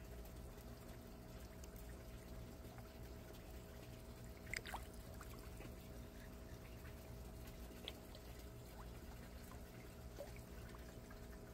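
Water trickling and pouring into an aquaponics fish tank, faint and steady, over a low steady hum. Two brief sharp little sounds come about four and a half seconds and eight seconds in.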